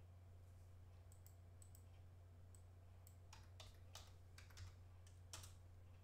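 Faint keystrokes on a computer keyboard, a scattered run of clicks mostly in the second half, over a low steady hum.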